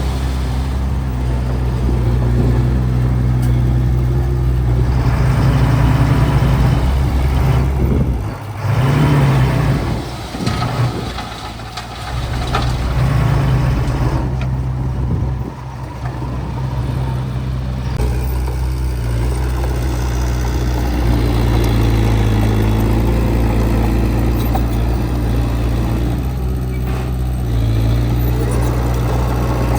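Heavy diesel engine of earthmoving equipment running under load. The level dips several times in the middle and then comes back steady.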